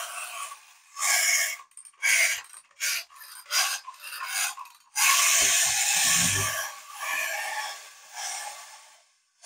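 Schylling tin clockwork dog being wound, several short rasping strokes from the key and spring mechanism. About five seconds in, the clockwork runs with a steady rasping whirr that almost sounds like a dog growling, with a few low knocks as the toy meets the floor, then it fades as it runs down.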